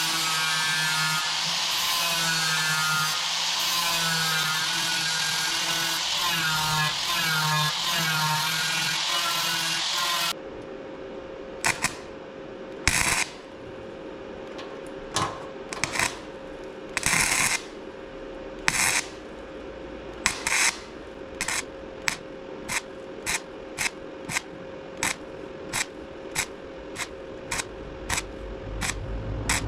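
Handheld power tool working on the steel fuel tank, its motor pitch wavering as it is pressed into the metal, cutting off about ten seconds in. After that comes a steady faint hum with a string of short hissing bursts that come faster toward the end.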